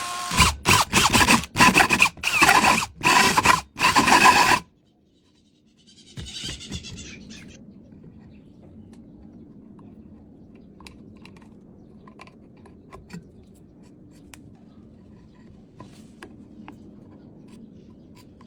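A quick run of about six loud scraping strokes, then mostly quiet with faint scrapes and clicks of handling.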